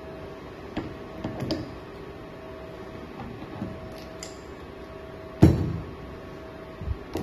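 Metal parts of an Ingersoll Rand IR-231C impact wrench being handled and set down on a worktable: a few light clinks, a solid knock about five and a half seconds in, and a smaller knock near the end, over a faint steady hum.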